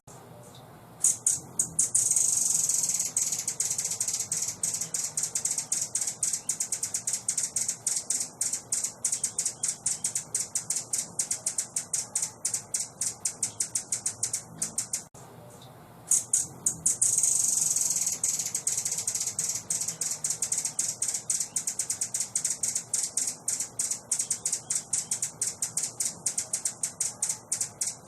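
Songbird's rapid, high-pitched chattering song: a long run of quick clicking notes that breaks off briefly about halfway through and starts again.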